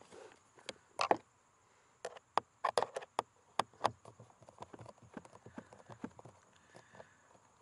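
Sharp plastic clicks and taps of a cabin-filter access cover being fitted back in place under the dashboard: one about a second in, a quick run between about two and four seconds in, then lighter ticks.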